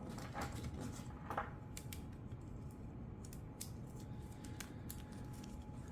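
Light, irregular metal clicks and ticks of a saw chain's links being handled and fed onto a chainsaw bar, a little louder about half a second and a second and a half in.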